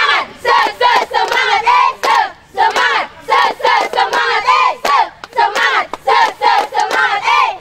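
A group of teenage girls chanting and singing a rhythmic group cheer in unison, clapping their hands to the beat.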